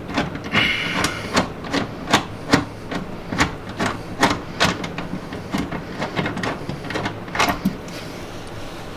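Repeated hammer blows on metal, about two to three a second, stopping near the end. They are persuading a tight-fitting AWD bracket piece into place in the car's rear end.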